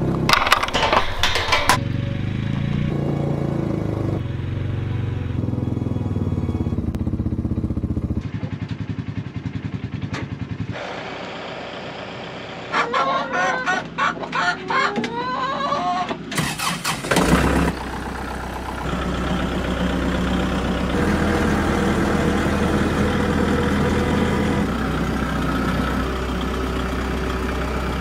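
ATV engine running as it tows a wheeled chicken coop, steady for the first several seconds and pulsing for a while after. Midway the engine drops away for a few seconds of chickens clucking. After a brief noisy burst, the engine runs steadily again.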